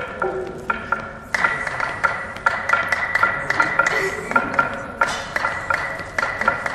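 Hand percussion playing a quick, steady beat of sharp strikes that ring with a clear pitch. The beat becomes fuller and louder about a second in.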